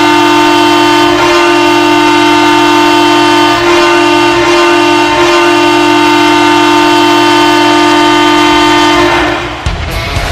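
Ottawa Senators' 2008-09 arena goal horn sounding one long, steady blast, the signal of a Senators goal. It cuts out about nine seconds in, and electric-guitar rock music takes over near the end.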